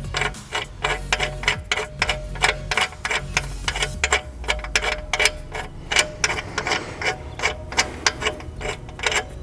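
Hand ratchet clicking in quick, slightly uneven strokes as a bolt in the front suspension is backed out.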